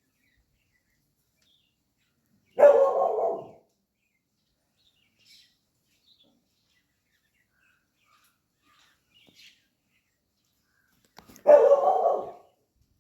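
A street dog barking: two short barks about nine seconds apart, with faint bird chirps in the quiet between them.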